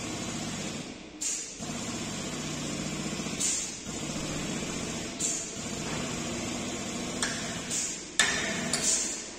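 Air-hydraulic pump of a cab-straightening bench running in repeated stretches of about two seconds, a buzzing hum with short hisses of air between stretches, as it drives a chain pull on a truck cab. About eight seconds in there is one sharp bang, the loudest sound.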